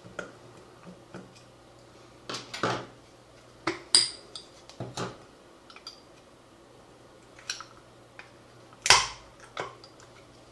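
A thin metal tool prying and scraping around the front speaker ring of a Bluetooth speaker's metal cylindrical housing. It makes scattered clicks, scrapes and sharp metallic clinks, with loud ringing clinks about four seconds in and again about nine seconds in.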